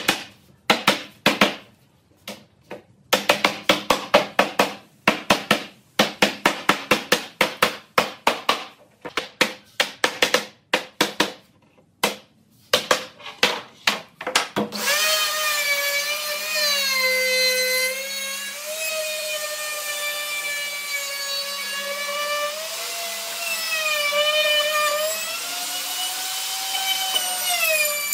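A hammer striking wood in quick runs of blows. About fifteen seconds in, it gives way to a handheld electric trim router cutting a wooden frame: a loud, high whine whose pitch dips and rises as the bit takes the wood.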